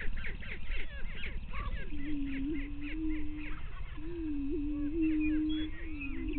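Male greater prairie chickens booming on the lek: three long, low, steady moaning hoots, each with a small lift near its end, the first about two seconds in. A busy chatter of short, higher cackling calls runs over them throughout.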